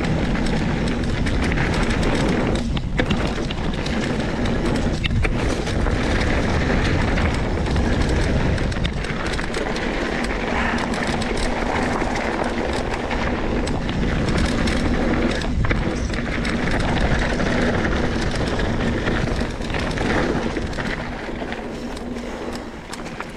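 Trek Remedy 27.5 full-suspension mountain bike ridden fast down a dirt and gravel trail: steady tyre rumble and wind noise on the microphone, with knocks and rattles as it goes over bumps. The noise eases a little near the end.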